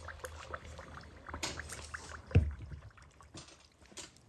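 Red-hot steel tool quenching in a can of motor oil: liquid sloshing and crackling around the tool, scattered small clicks, and one heavy knock about two and a half seconds in.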